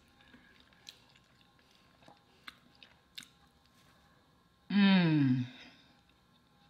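Faint mouth clicks and chewing of a cornbread muffin. About five seconds in comes a loud hummed "mmm" that falls in pitch, lasting under a second.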